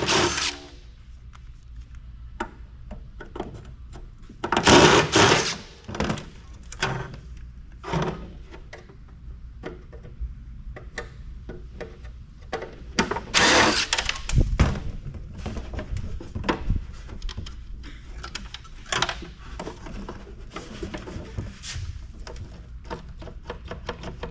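Hands and tools working inside a microfiche reader's housing as it is taken apart: scattered knocks, clicks and rattles of plastic and metal parts, with two louder noisy bursts about five and thirteen seconds in.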